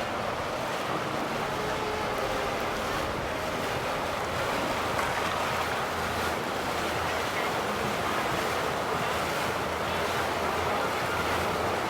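Steady rushing of water with wind noise on the microphone.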